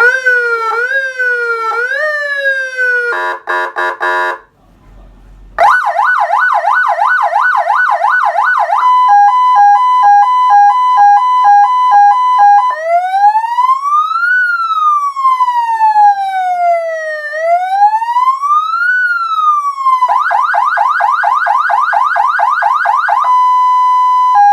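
Electronic vehicle siren cycling through its tones. It gives a short warble and a quick stepped burst, pauses briefly, then runs a fast yelp, a hi-lo two-tone, a slow rising and falling wail, the fast yelp again, and hi-lo again near the end.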